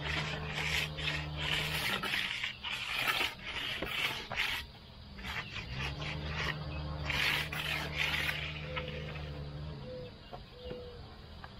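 A steel hand finishing tool scraping along the top edge of freshly poured concrete in repeated strokes as the wall's edge is tooled. A low steady hum comes and goes behind it.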